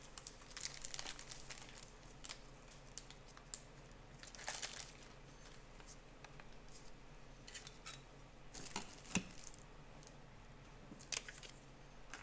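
Faint handling of trading cards and their plastic packaging: scattered rustles, crinkles and light clicks as the cards are sorted and sleeved.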